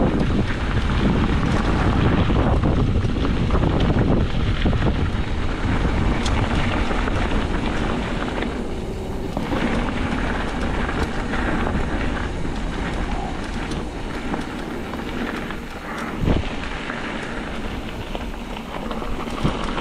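Wind buffeting the microphone over the noise of a mountain bike descending a rough downhill trail, with a sharp knock about sixteen seconds in.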